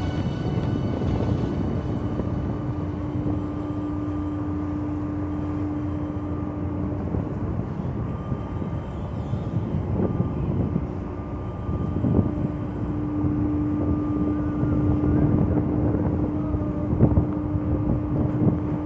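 Low rumble of a ship's engines, with wind on the microphone. A steady hum runs over it, fades out for several seconds in the middle and comes back.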